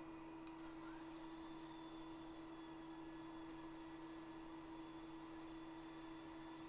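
Faint steady electrical hum with one clear steady tone, over low hiss; a tiny click about half a second in.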